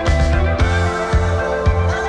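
Background music with a steady beat, about two beats a second, over sustained bass notes.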